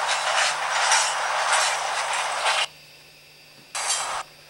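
Loaded coal hopper cars rolling past, heard as playback through a camcorder's small speaker: a thin, hissy rush with no deep rumble and faint rhythmic swells. It cuts off abruptly about two and a half seconds in, leaving a faint steady hum, and comes back in a short burst near the end.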